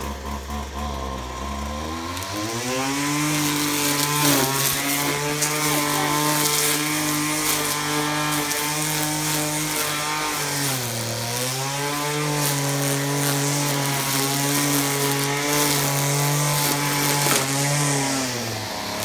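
Poulan Pro PR25 25cc two-stroke string trimmer idling, then revving up to full throttle about two seconds in and running steadily at high revs while cutting grass. It eases off briefly around the middle and again near the end, then goes back up.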